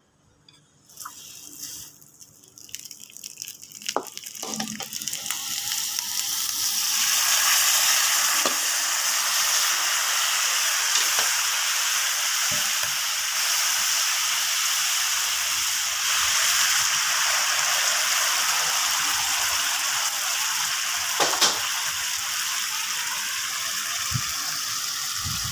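Seafood and basil stir-fry sizzling in hot oil in a pan, swelling from quiet to a loud, steady sizzle over the first several seconds, with a few sharp clinks of a utensil against the pan.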